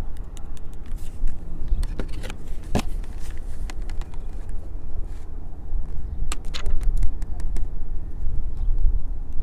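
Wind rumbling on the microphone, with scattered clicks, taps and scrapes from a plastic Academy Kahr TP45 airsoft pistol being handled against its cardboard box.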